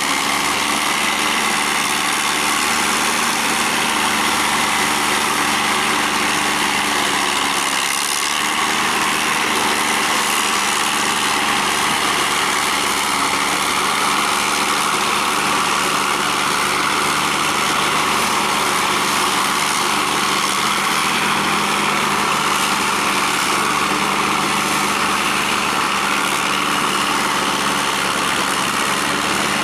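Diesel engine of a Ford tractor fitted with crawler tracks, running steadily under load while pulling a rotary tiller through wet mud, together with a steady noise of the tiller and tracks working the paddy.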